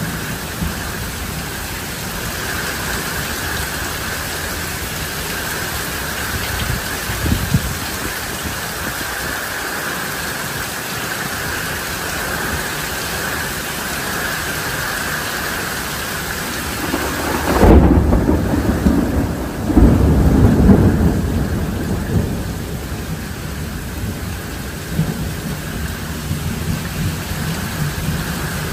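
Steady rain with thunder. A little past halfway a loud thunderclap breaks and rolls for about five seconds, swelling twice before fading; a fainter rumble comes earlier.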